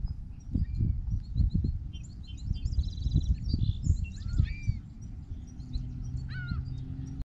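Several songbirds calling and singing, with short chirps, a brief trill and slurred whistled notes, over loud, irregular low rumbling of wind on the microphone. A low steady hum joins in near the end, and everything cuts off suddenly just before the end.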